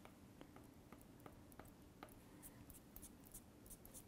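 Faint ticks and scratches of a pointed metal modelling tool poking and picking at cake icing, a few small clicks a second.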